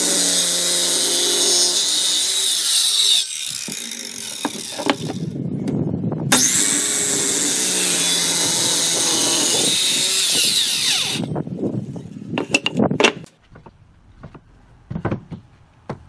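Handheld circular saw cutting through a thick wooden block. The cutting sound eases off about three seconds in and is loud again from about six seconds. The saw stops about eleven seconds in, followed by a few knocks.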